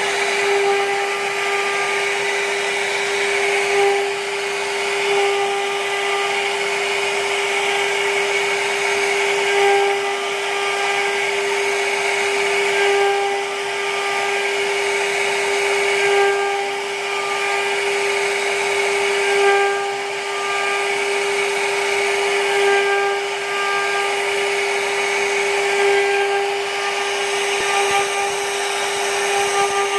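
CNC router spindle running at a steady high pitch while its bit carves relief patterns into a wooden panel. The cutting noise swells and eases about every three seconds as the bit moves through the wood.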